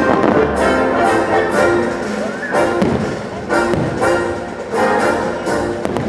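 Orchestral show music led by brass, with fireworks going off repeatedly over it, about one to two bangs a second.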